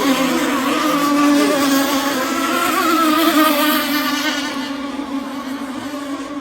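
Twin 30cc two-stroke gas engines (modified Zenoah) of an RC rigger boat running at high revs, a steady high-pitched buzz with a slightly wavering pitch. It grows a little quieter after about four and a half seconds.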